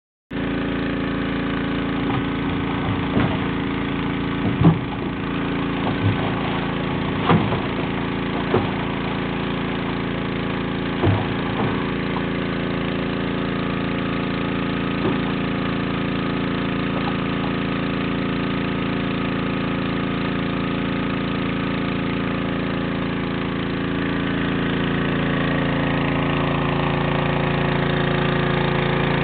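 An engine running steadily at a constant pitch, with a handful of sharp knocks in the first dozen seconds. It grows slightly louder near the end.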